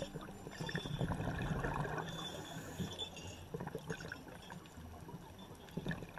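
Underwater ambience: a low rush of water with scattered short clicks and crackles.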